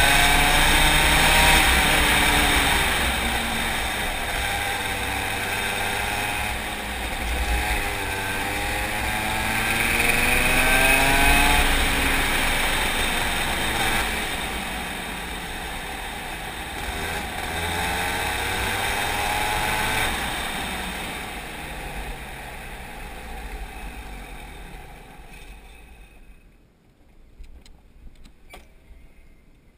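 Racing kart's engine heard onboard, its pitch sweeping up and down over and over as it accelerates and lifts through the corners. Over the last several seconds it dies away, leaving only a few faint clicks.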